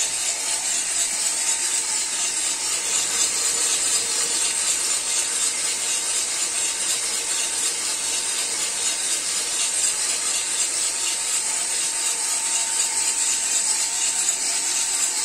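Cormorant CR600 electric coffee roaster running mid-roast: the drum turning with the beans tumbling inside it, a steady hiss with a faint hum. The beans have not yet reached first crack, so there is no cracking.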